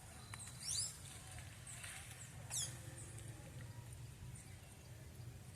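Birds calling outdoors: two loud, quick downward-sweeping high calls, about a second in and again about two and a half seconds in, over faint scattered chirps, with a steady low rumble underneath.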